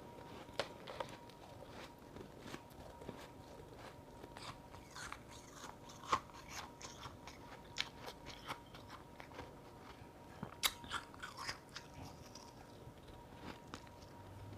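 Powdery freezer-frost ice chunks being bitten and chewed: irregular crisp crunches, the loudest about six seconds in and again near eleven seconds.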